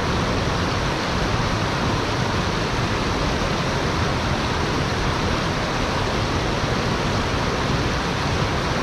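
Shallow stream rushing over rocks: a loud, steady rush of water.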